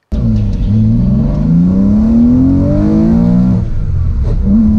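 Car engine heard from inside the cabin under hard acceleration: its pitch climbs steadily for about three and a half seconds, drops at a gear change, then climbs again near the end.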